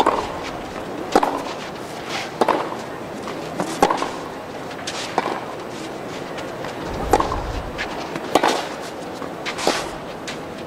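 Tennis rally: rackets striking the ball and the ball bouncing on the court, a sharp knock about every second over a steady background hiss.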